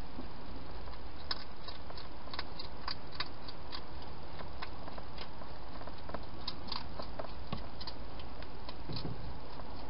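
Wild hedgehog eating from a bowl: small, irregular chewing clicks and crunches over a steady hiss.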